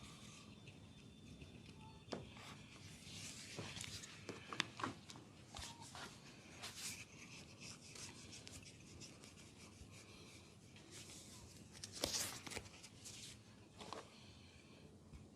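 Hands rubbing and massaging skin and hair during an oil massage: a soft, continuous friction hiss with a few brief sharp clicks, the loudest about four and a half seconds in and again about twelve seconds in.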